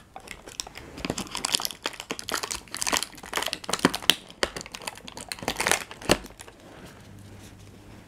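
Packaging crinkling and rustling in irregular bursts as a wrapped eyeliner brush is pulled out of a cardboard advent-calendar compartment and handled; it dies down about a second before the end.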